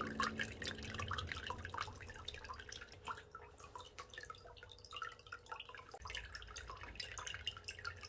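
Small tabletop waterfall running: water trickling and dripping over stacked black slate into a shallow pool, a soft, irregular patter of small splashes.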